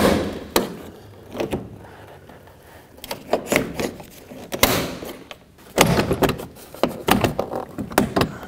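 Plastic trim tool prying a Chrysler Sebring's door trim panel off the door, its stiff plastic retaining clips popping loose in a series of sharp snaps and knocks. The snaps come closer together in the last few seconds.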